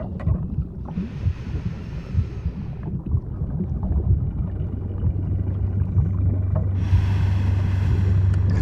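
Underwater ambience: a constant low rumble of water with small bubbling pops, joined about three seconds in by a steady low hum. A soft hiss rises about a second in and fades out a couple of seconds later, then returns near the end.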